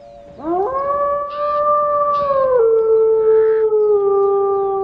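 A wolf howling: one long howl that starts about half a second in, rises quickly, holds its pitch, then drops a step about two and a half seconds in and slowly sinks lower.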